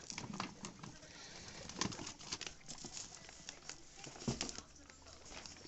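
Guinea pigs moving about their cage: scattered clicks, light knocks and rustles, with two louder knocks about 2 s and 4 s in.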